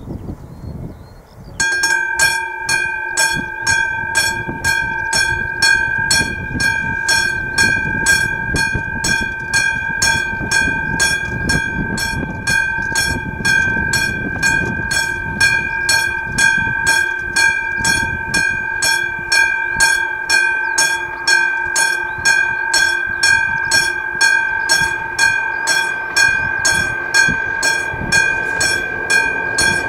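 Level-crossing warning bell of an AŽD 97 signal, a classic mechanical bell, starting suddenly about a second and a half in and then striking steadily at about two strokes a second. It is the crossing's warning that a train is approaching.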